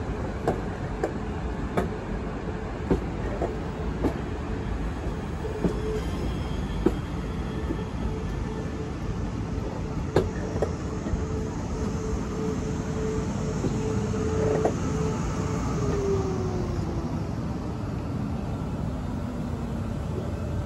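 South Western Railway electric multiple unit running slowly alongside the platform: its wheels click over rail joints at ever longer gaps as it slows, over a steady motor whine that falls in pitch near the end.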